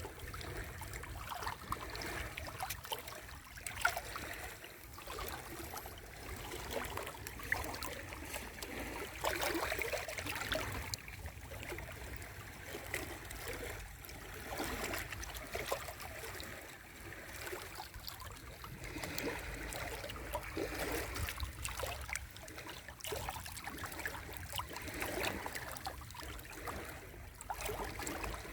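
Sea waves washing onto the shore, the rush of water rising and falling in swells every several seconds, with small crackles of moving water throughout.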